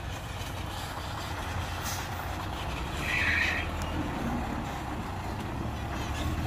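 Dump truck engine running steadily at a low drone, with one short higher-pitched burst of noise about three seconds in.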